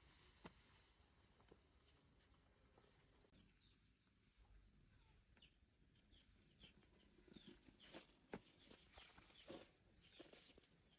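Near silence: faint rural outdoor ambience with scattered short bird chirps and soft clicks, more frequent in the second half.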